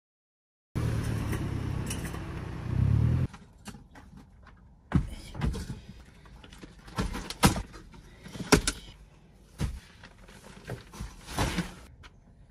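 Bags and gear being loaded into the rear cargo area of a Suzuki Jimny Sierra, heard from inside the cabin: scattered knocks, thuds and rustles. Before that, a steady low rumble runs for a couple of seconds and then cuts off.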